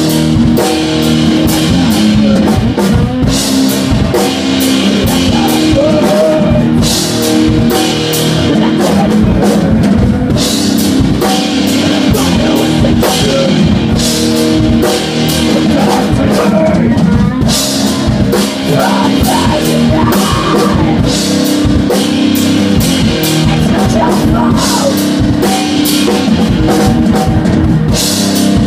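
Rock band playing loud, live: drum kit with steady cymbal strokes, electric guitar, and a vocalist on microphone.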